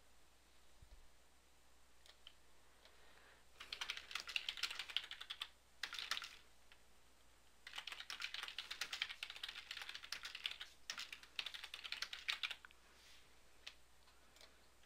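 Typing on a computer keyboard: two runs of rapid keystrokes, the first from about three and a half to six seconds in, the second from about eight to twelve and a half seconds in, with a short pause between them.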